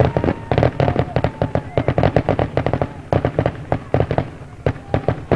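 Fireworks grand finale: a rapid barrage of aerial shell bursts, sharp bangs coming several times a second, thinning out to a few scattered reports near the end.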